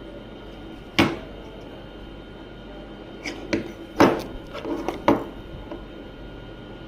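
Clicks and knocks of hard objects being handled: one sharp knock about a second in, then a quick run of clicks and knocks between about three and five seconds.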